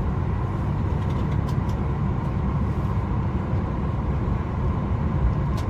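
Steady low rumble of cabin noise inside a Boeing 737 MAX 8 airliner on the ground before takeoff, with a faint steady hum on top and a couple of faint ticks.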